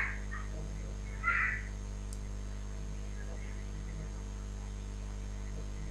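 Steady electrical mains hum, with one brief louder sound about a second in.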